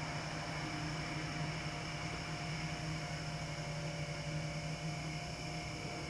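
Steady low hum with faint steady high-pitched tones above it, unchanging throughout, with no distinct event.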